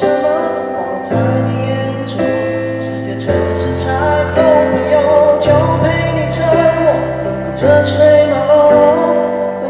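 Pop ballad sung live by a male singer over a backing track: the chords change about once a second, and in the second half a held, wavering sung line sits over them.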